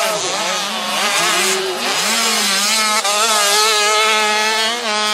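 Motocross bike engines revving hard and easing off, their pitch climbing and dropping again and again, with two engines overlapping in the first couple of seconds.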